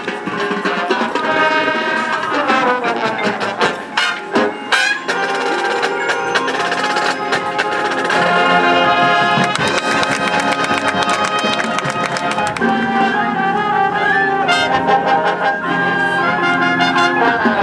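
High school marching band playing loudly: the brass section, trumpets, mellophones and sousaphones among them, holds chords over mallet keyboards and percussion hits.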